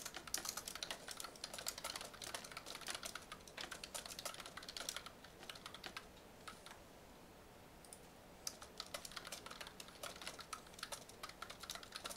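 Typing on a computer keyboard: quick runs of keystrokes, a lull of about three seconds in the middle, then typing again.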